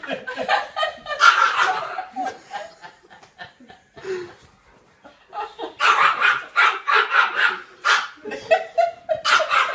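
A dog barking in three bouts, with a quieter gap in the middle, along with a person laughing.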